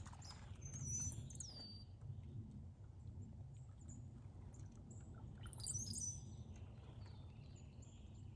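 Blackbirds calling: a few short, high, squeaky calls that slide in pitch, one cluster about a second in and another around six seconds in, with fainter single notes in between.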